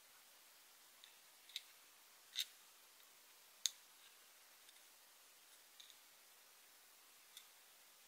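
Light, sharp clicks and taps of tiny miniature kitchen utensils being hooked onto the rail of a miniature utensil rack, at irregular intervals, the loudest about two and a half and three and a half seconds in.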